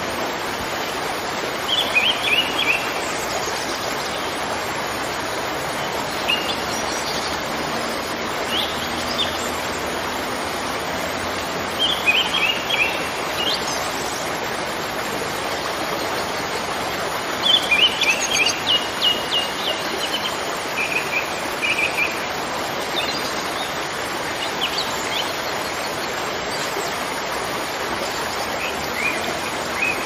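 Steady rushing of a waterfall, with birds chirping in short high bursts every few seconds; the longest run of chirps comes a little past the middle.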